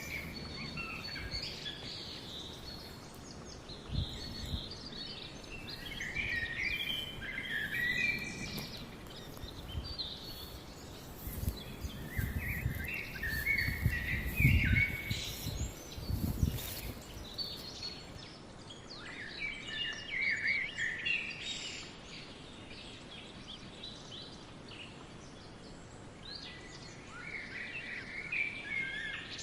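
Wild songbirds singing and chirping in short repeated phrases, with a few low rumbles about halfway through.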